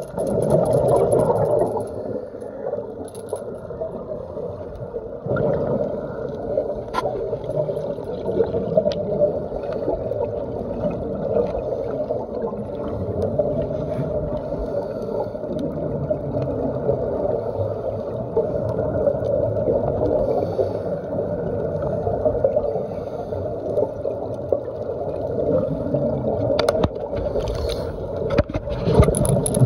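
Muffled underwater noise heard through a phone's waterproof dive case: a steady gurgling rumble, with a few faint clicks.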